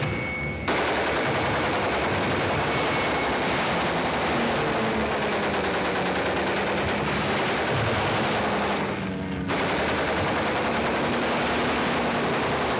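A bomber's .50-calibre machine guns firing long continuous bursts, starting abruptly under a second in and breaking off briefly about nine seconds in before resuming. A low drone of aircraft engines runs underneath.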